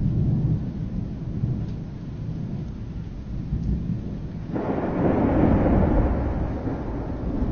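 Thunder: a low rumble, then a sudden louder, brighter crack about four and a half seconds in that keeps on rumbling.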